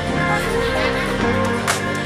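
Background music: held instrument notes with a light percussion hit near the end.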